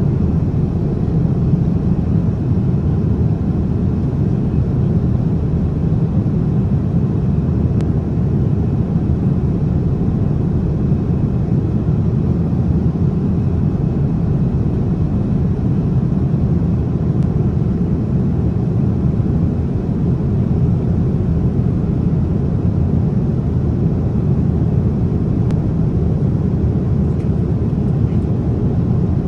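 Steady cabin noise inside a Boeing 787-9 Dreamliner in flight: an even, deep rush of engine and airflow noise that does not change.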